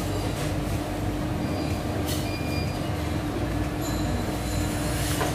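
Steady dining-room background noise in a fast-food restaurant: an even hum with one held tone through it, and a couple of faint clicks about two and four seconds in.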